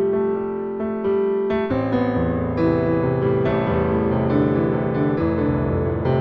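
Background music: a slow, gentle piano piece with held chords, changing chord about two seconds in.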